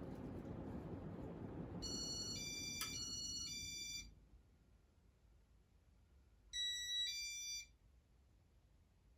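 Casablanca Zephyr ceiling fan running with a steady hum that cuts off abruptly about four seconds in. Its Intelli-Touch electronics give a short run of electronic beeps at shifting pitches about two seconds in, and another short beep run around seven seconds in.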